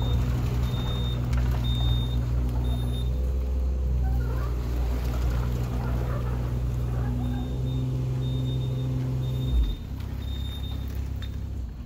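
Electric scooter's motor running with a steady low hum that shifts in pitch a few times, then stops with a thump near the end. Short high beeps repeat about once a second during the first few seconds and again later.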